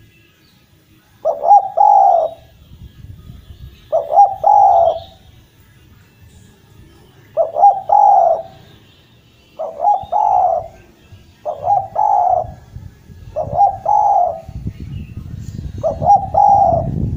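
Spotted dove (derkuku) cooing over and over: seven calls about every two seconds, each a short note running into a longer coo. A low rumble rises beneath the last few calls.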